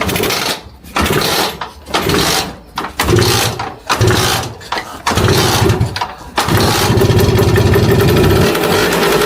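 Lambretta scooter's two-stroke single-cylinder engine being started after long storage: it fires in several short bursts that die away, then catches about two-thirds of the way in and runs steadily.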